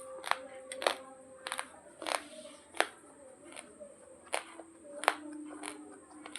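Raw basmati rice grains crunching between the teeth as they are chewed: about ten sharp crunches, one every two-thirds of a second or so.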